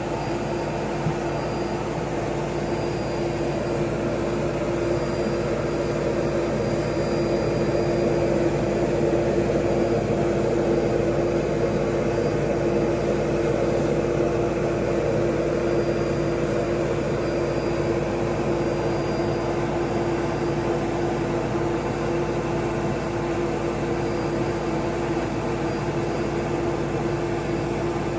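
Steady whirring hum inside an Airbus A320 avionics compartment: cooling fans and running equipment, with one steady mid-pitched tone over an even rush of air-like noise. It grows slightly louder partway through.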